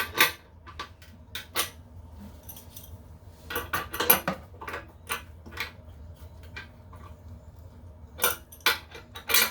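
Irregular metal clinks and clattering knocks of small tools and hardware being handled, with a thicker run of clicks about halfway through and again near the end.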